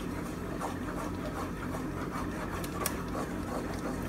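Wooden spoon stirring a thick cheese sauce in a pot: soft scraping strokes repeating about twice a second over a steady low hum, with one sharp click about three seconds in.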